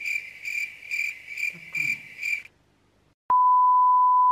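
A high-pitched, cricket-like chirp repeats about twice a second and stops about two and a half seconds in. After a short silence, a steady test-tone beep of the kind played with colour bars starts with a click and holds until it cuts off sharply near the end.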